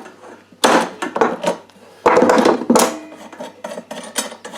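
Spanner and pliers loosening the nut of a brass compression fitting on copper pipe: two bursts of metal scraping and clicking, one about half a second in and one about two seconds in.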